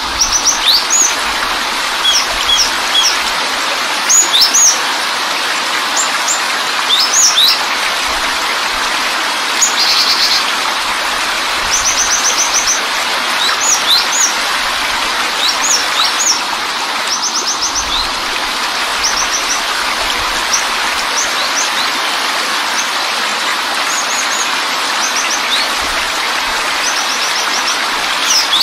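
Steady rush of a waterfall with small birds chirping on and off over it: short, sharp, rising chirps and a few quick trills.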